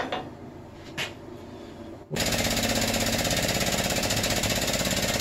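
Two light metal clinks as steel dies are set on a brass plate, then about two seconds in the Baileigh hydraulic shop press starts and runs with a loud, fast, even pulsing as it presses the dies into the brass.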